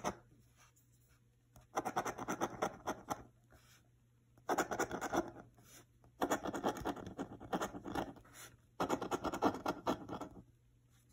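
A coin scratching the coating off a scratch-off lottery ticket in four bouts of fast back-and-forth strokes, with short pauses between them.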